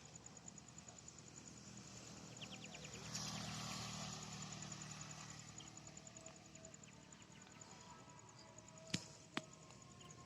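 Outdoor ambience with faint, rapidly pulsing insect chirping and a short, evenly spaced trill about two and a half seconds in. A broad swell of noise follows at about three seconds, and two sharp clicks come near the end.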